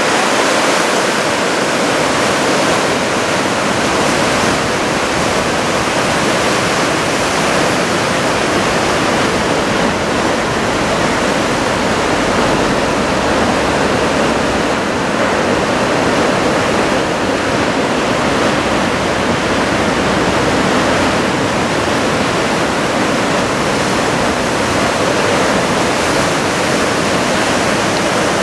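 Steady noise of heavy surf from a typhoon swell, waves breaking continuously on the shore.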